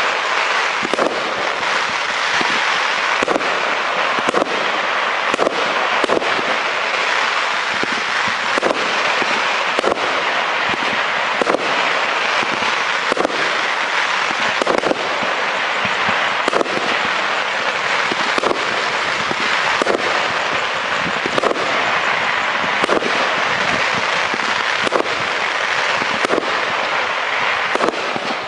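84-shot consumer firework cake firing shot after shot in quick, even succession. Each launch thump is followed by bursting stars, over a continuous crackle.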